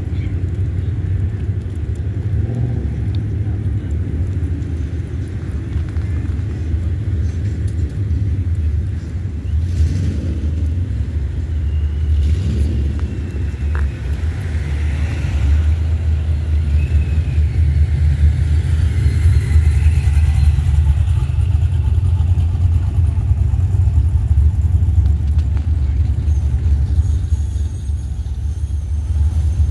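Cars driving slowly past on the road, their engines making a steady low rumble.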